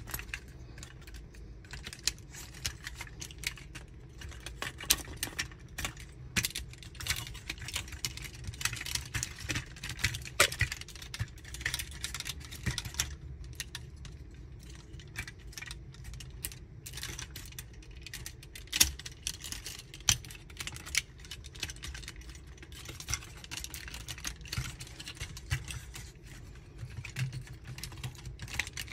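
Plastic clicks, taps and snaps of a Magic Square MS-02 Light of Peace transforming robot figure as its parts are moved and pressed into place by hand, in irregular quick runs.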